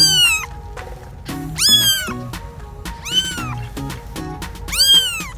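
A newborn kitten, eyes still closed, mewing: four high-pitched cries about a second and a half apart, each rising and then falling in pitch. Background music with a steady beat plays underneath.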